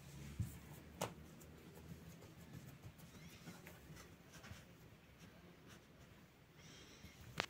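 Quiet handling sounds of soft dough and cheese cubes being worked by hand, with a few sharp clicks, the loudest about a second in and just before the end. Near the end comes a faint, high mewing call.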